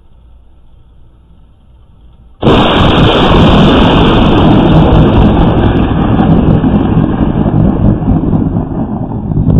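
A close lightning strike: a sudden, very loud thunderclap about two and a half seconds in, overloading the microphone, then a loud thunder rumble for several seconds. Before it there is only a faint low hum.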